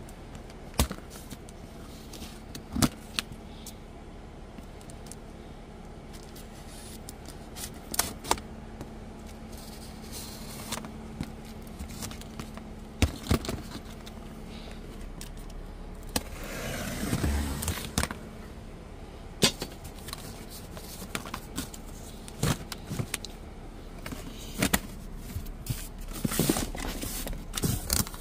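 A box of coilovers being opened and unpacked: scattered knocks and clicks of handling, with a longer rustle of packaging about seventeen seconds in, over a faint steady hum.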